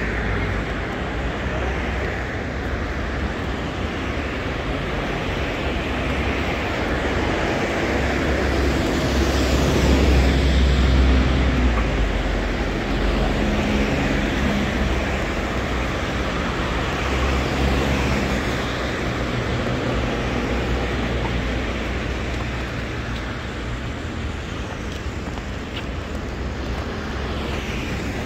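City street traffic: a continuous rush of vehicles passing, with engine rumble swelling loudest as a vehicle goes by about ten seconds in.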